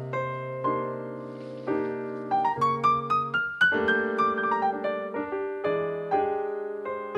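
Background piano music: a melody of struck notes over held low notes, with a short run of rising notes around the middle.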